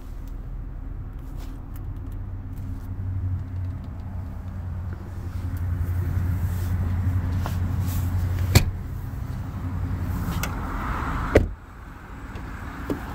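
Low rumble and handling noise while moving through an SUV's cabin, a sharp click past the middle, then a car door slamming shut near the end, after which the rumble drops away.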